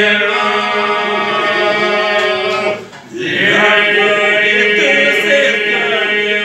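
Group of men singing a Lab polyphonic folk song a cappella: long held voices over a steady drone. The voices drop out briefly about three seconds in, then come back in.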